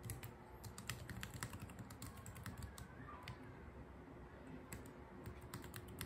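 Fingers typing on a compact white Bluetooth keyboard: soft, irregular key clicks in quick runs.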